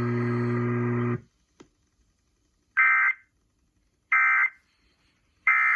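Steady hum that cuts off about a second in, then three short identical bursts of screechy EAS digital data tones about 1.4 s apart. These are the end-of-message (EOM) codes that close the ice storm warning alert.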